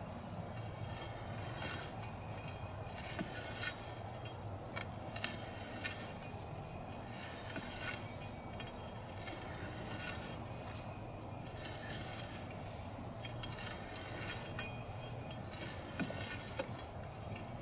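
Steel valve key scattering metal clinks as it slowly turns a buried 6-inch gate valve open, turned slowly so as not to cause water hammer. A steady low rush runs beneath.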